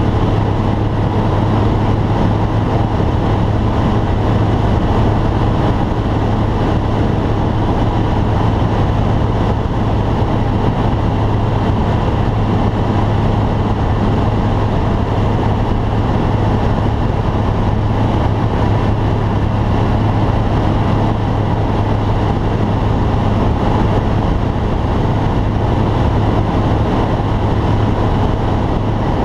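T-10M light aircraft's engine and propeller in flight, a loud steady drone heard inside the cockpit, with rushing airflow.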